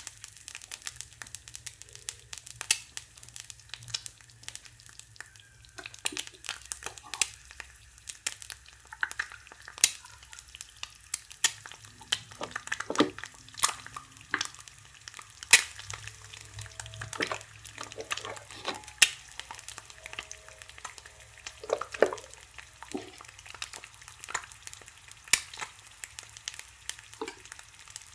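Irregular light clicks and taps of small plastic toy kitchen pieces being handled, a crackly patter with a few sharper knocks.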